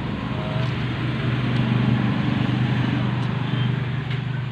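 Steady low hum of a running machine, unchanging throughout, with a couple of faint light clicks.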